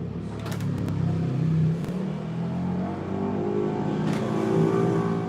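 A motor vehicle engine running and revving, its pitch shifting up and down, loudest about four and a half seconds in.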